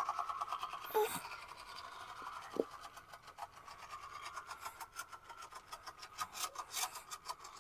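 Battery-powered toy train running around its plastic track: its small electric motor whirs steadily, with a run of light clicks from the wheels and track.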